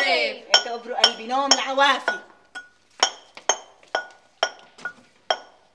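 Brass mortar and pestle being pounded: sharp ringing metallic strikes, about two a second once the voice stops.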